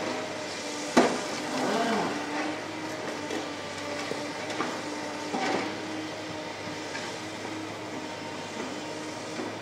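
Tracked excavator's diesel engine running steadily while it breaks up a concrete canopy beam: one sharp crack of concrete about a second in, then wavering squeals and grinding of steel on concrete, again a few seconds later.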